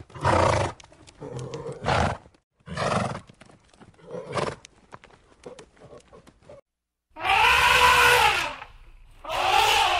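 A horse makes four short breathy calls among scattered hoof clicks. Then an African elephant calls twice, each long call rising and then falling in pitch.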